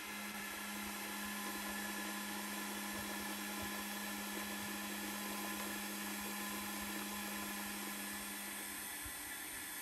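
Electric centrifugal cream separator running steadily, its small motor and spinning bowl giving an even whirr with a low hum, while it separates fresh milk into cream and skim milk. The hum drops out near the end while the whirr goes on.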